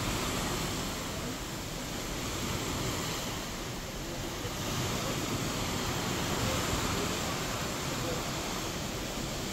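A cruise ship's wake churning and rushing against the open sea, heard from high on deck as a steady hiss of foaming water.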